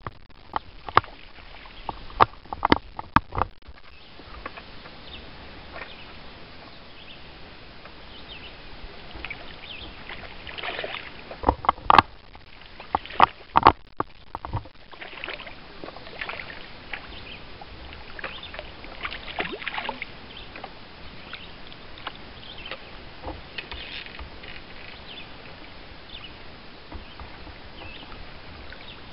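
Hooked brook trout splashing and thrashing at the water's surface as it is played in on a fly rod. A run of sharp clicks comes in the first few seconds, and the loudest splashing and clicks come around the middle.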